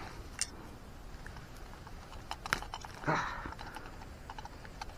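Scattered light clicks and rustles of fishing gear and grass being handled, with a brief louder rustle about three seconds in.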